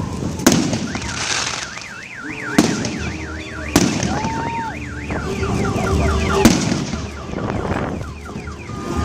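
Fireworks bursting overhead in sharp single bangs a second or more apart, while a car alarm sounds a fast up-and-down warble and then switches to a run of repeated falling chirps.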